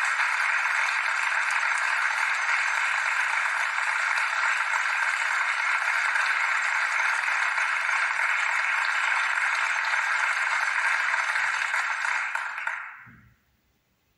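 Steady crowd applause from a cartoon soundtrack, heard through a laptop's speakers. It fades out about a second before the end.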